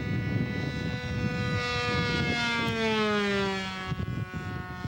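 Radio-controlled model aircraft engine running at a steady high pitch, which then falls over a couple of seconds about two seconds in, as in a fly-by or a throttle-down.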